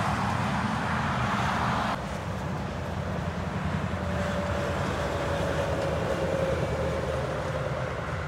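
Heavy trucks passing at speed on a motorway: a steady low rumble of engines and tyres. The noise drops suddenly about two seconds in, and a faint whine falls slightly in pitch later on.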